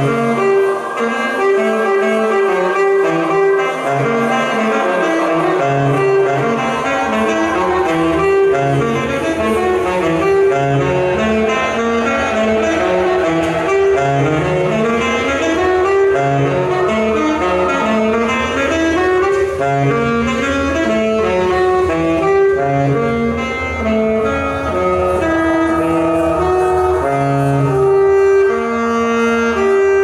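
Alto saxophone playing quick, wide-ranging runs of notes, often with several pitches sounding at once, over a low steady drone that comes in about six seconds in. It settles onto a long held note near the end.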